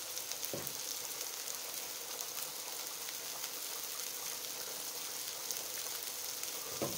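Beef and bacon patties frying in a Sunbeam electric frying pan: a steady sizzle of fat, with a light crackle.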